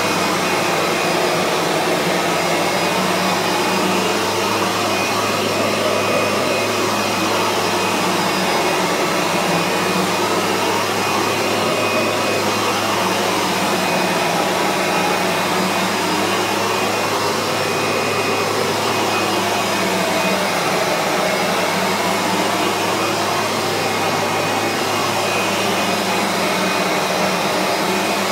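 Kirby G3 upright vacuum running steadily with its buffing head fitted, polishing a freshly waxed laminate floor; a continuous motor noise whose tone wavers slowly.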